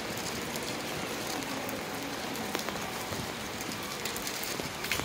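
Rain falling onto a street covered in standing water: a steady hiss, with scattered sharper drip and splash ticks.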